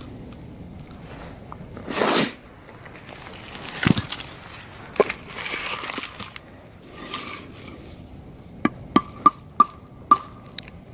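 Rustling and scattered knocks as chopped dead branches are handled, then a quick run of six sharp taps on the wood, about two a second, near the end.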